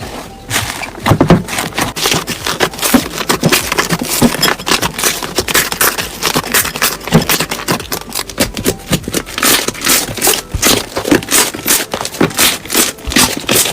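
Slime being worked by hand, giving a dense, continuous run of crackling and popping clicks.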